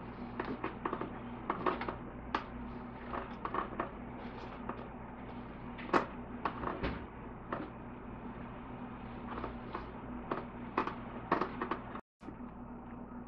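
A metal fork mashing and stirring the soft flesh of smoked acorn squash halves in an aluminium foil pan, with irregular clicks and scrapes of the fork against the tongs and the pan; the sharpest click comes about halfway through. A steady low hum runs underneath, and the sound cuts out for a moment near the end.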